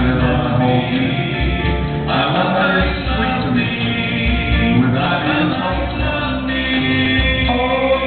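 Live band performing a pop song: male lead vocal with backing vocal harmonies over drums, keyboard and guitar.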